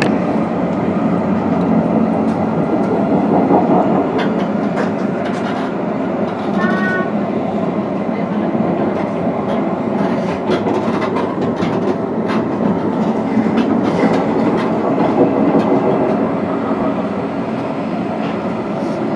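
CAF Urbos 3 tram running along the line, heard from inside the car: a steady rumble of wheels and traction gear with scattered clicks from the track. A brief high chirp comes about seven seconds in.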